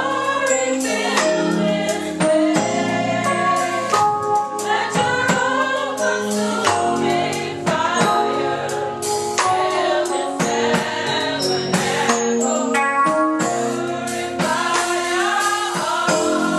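Gospel worship song: a choir sings over a live band with percussion.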